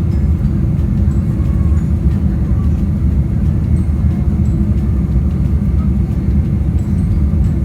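Steady low rumble of a vehicle on the move, even throughout with no distinct events.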